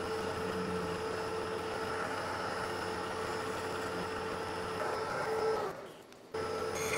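Vertical milling machine running, its end mill cutting a connecting rod cap: a steady motor hum with a constant whine. The sound drops away for a moment near the end, then returns.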